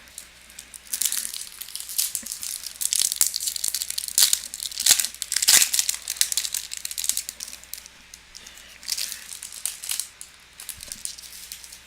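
A foil trading-card pack wrapper being torn open and crinkled in the hands, a crackly rustling with many sharp snaps that runs for most of the stretch and dies down near the end.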